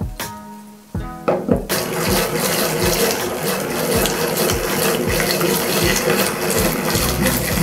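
Hand-cranked rotary egg beater whipping cream in a stainless steel bowl: a loud, steady churning noise that starts about two seconds in, after a few clicks of a whisk against the bowl.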